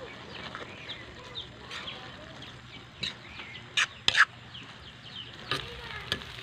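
Chickens clucking, with a few sharp clicks of a metal spatula striking the wok as rice noodles are stirred, the loudest about four seconds in.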